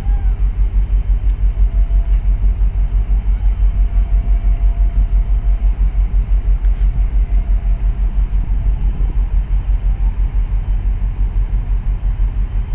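A small boat's engine running steadily underway, a fast, even low pulsing with a haze of water and wind noise above it.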